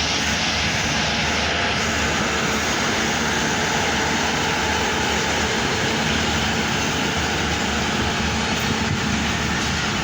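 Diesel locomotive engine running steadily: a loud, even drone with a low hum under it.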